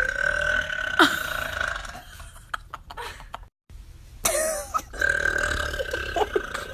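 A girl burping loudly several times; one burp slides down in pitch about a second in. A steady high tone runs behind the first and last burps, and the sound cuts out for a moment near the middle.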